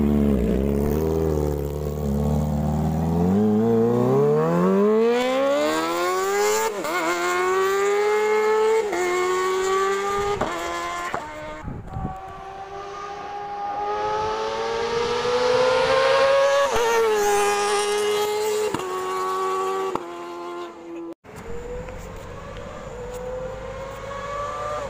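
Kawasaki Ninja ZX-25R's 250 cc inline-four engine running at idle, then accelerating hard through the gears, its note climbing steeply with a short dip in pitch at each upshift. Then two more runs in which the engine note climbs steadily at high revs.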